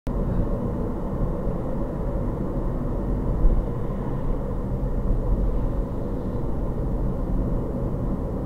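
Car driving at steady speed: an even low rumble of engine and tyre noise, heard from inside the cabin.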